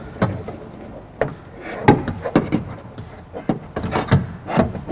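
Irregular knocks, clunks and clicks of a power window regulator and motor assembly being worked inside a car door, its metal frame knocking against the sheet-metal inner door panel.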